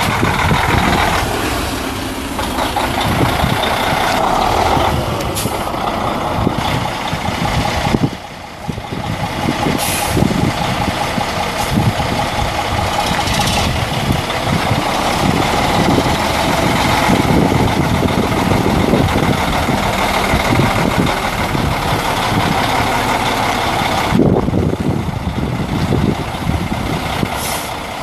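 Freightliner Columbia semi tractor's Mercedes-Benz MBE 4000 12.8-litre inline-six diesel running as the truck drives around, with rough, fluttering noise throughout. The sound drops briefly about a third of the way in.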